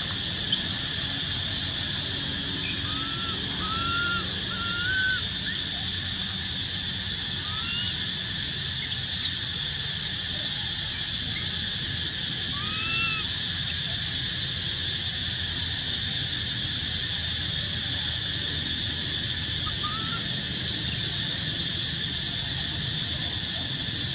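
Steady high insect drone, with a baby macaque giving short squeaks that rise and fall every few seconds as an adult macaque holds it down.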